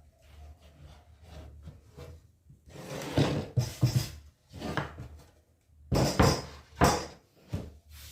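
Irregular wooden knocks and clunks, about half a dozen over a few seconds, loudest around two-thirds of the way through: pieces of wood being handled and set down on a workbench.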